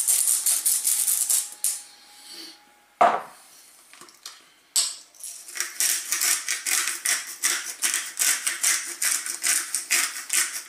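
Hand-twisted salt and pepper mills grinding sea salt and black peppercorns: a fast run of crisp crunching clicks that stops about a second and a half in, a single sharp knock about three seconds in, then the grinding clicks start again just before the five-second mark and run on.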